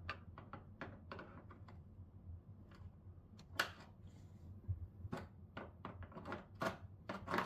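Irregular light clicks and taps of screws and tools being handled while taking apart the plastic casing of an old TV, a few sharper clicks about halfway and near the end.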